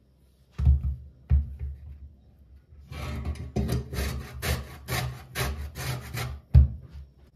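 Lemon zest being grated on a stainless-steel box grater: rasping strokes, about three a second, for some three seconds. Two thumps come before the grating, and one louder thump comes near the end.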